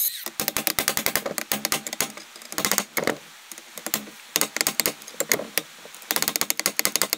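Quick, irregular light metal clicks and taps from a steel clutch pedal part being handled and worked in a bench vise, coming in rapid clusters with short pauses.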